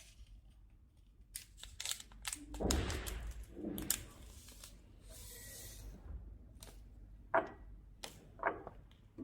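Handling sounds from a sachet of limescale cleaner and a cup: scattered light clicks and soft knocks, with a short stretch of rustling about three seconds in and a faint hiss a couple of seconds later.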